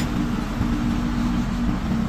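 Truck-mounted crane's engine running steadily at a constant pitch while the crane holds a bulldozer final drive assembly on its chain.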